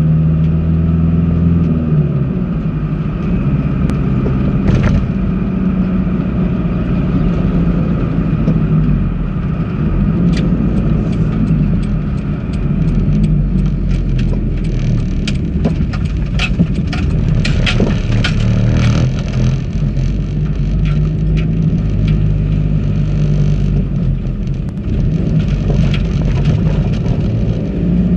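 A 4x4's engine running steadily as the vehicle drives, heard from on board, its hum shifting in pitch a few times. Sharp clicks and knocks rattle in between about ten and twenty seconds in.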